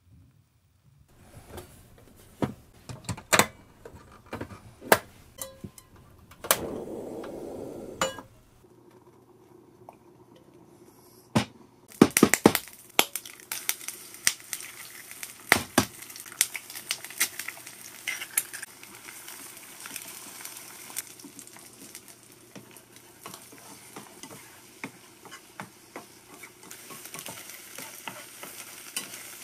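Aluminium mess tin of rice cooking over a solid-fuel tablet. Scattered sharp metallic clicks and taps come first, with a brief rushing noise about seven seconds in. From about twelve seconds in there is a steady crackling sizzle with many sharp pops as boiling water spits and sizzles on the hot tin.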